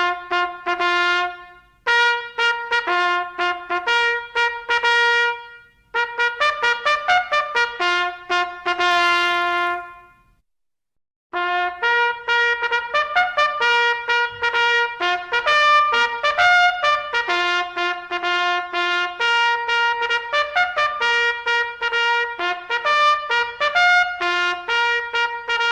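Trumpet sounding military salute calls: several short fanfares of quick repeated notes, a brief silence about ten seconds in, then a longer call.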